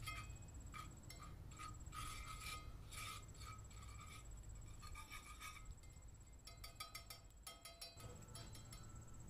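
Wire whisk clinking and scraping against a small cast iron skillet as margarine and seasonings are stirred while they melt. Faint, irregular metallic taps, with a quicker flurry about seven seconds in.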